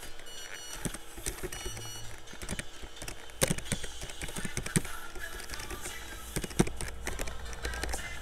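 Computer keyboard being typed on: irregular keystroke clicks with a few sharper, louder strokes, over a low steady hum.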